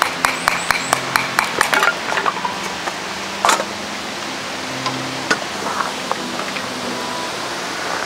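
Kindling being split with a knife and broken apart by hand: a quick run of dry wooden clicks and cracks for about the first two seconds, a single sharp crack about three and a half seconds in, and a few lighter clicks after. Soft background music plays underneath.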